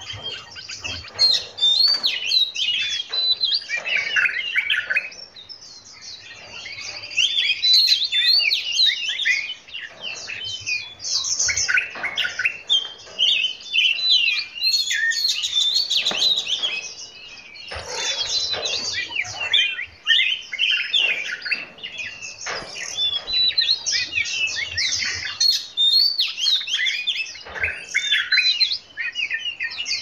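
Several songbirds singing and chirping together in dense, overlapping quick whistled phrases and trills, with a few brief lulls.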